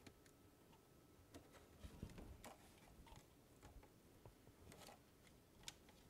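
Near silence with faint, irregular small clicks and taps from hands working parts inside an opened PS4 console.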